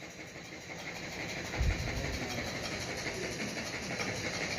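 A steady engine-like rumble with hiss, and a short low thud about one and a half seconds in.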